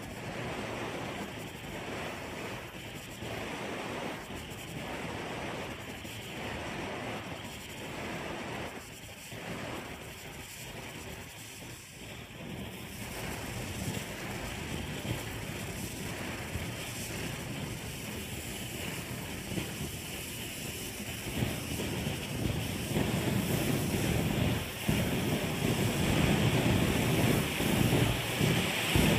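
Clayton & Lambert Model 238 gasoline blowtorch burning with a steady rushing noise, pulsing about once a second at first. In the last several seconds it grows louder and steadier as the burner heats up and the flame turns from a loose yellow flare into a jet.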